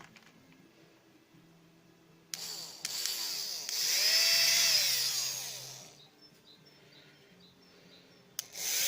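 Brushed DC motor from a Bosch 10.8 V cordless drill, run bare: about two seconds in it spins up with a rising whine, runs a few seconds and winds down, then a click and it starts again near the end. The brushes have seated and it runs without sparking.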